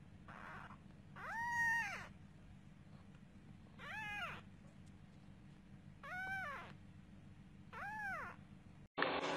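Kitten meowing four times, about two seconds apart, each meow rising and then falling in pitch; the first is the loudest. A louder steady hiss cuts in abruptly at the very end.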